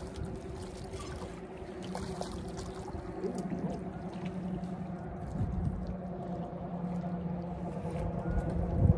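A boat motor's steady hum from the river, with water splashing against the rocks of the bank. There is a sharp thump just before the end.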